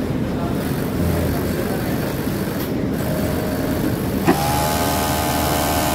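Steady machine din of a garment-factory sewing floor. About four seconds in, a click as an industrial sewing machine starts, then it runs with a steady whine and hiss for under two seconds and stops abruptly.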